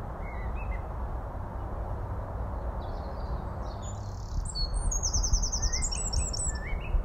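Small songbirds chirping, with a quick run of bright, rapidly repeated high song notes starting about four seconds in, over a steady low background rumble.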